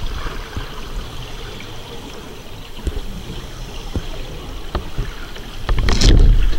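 Underwater hiss with scattered faint clicks, then, near the end, a loud rush of bubbles as the scuba diver exhales through his regulator close to the camera.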